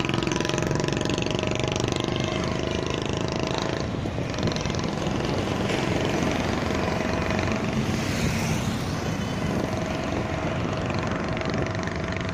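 A vehicle running steadily, heard from on board: constant engine and road noise while it rides onto the bridge.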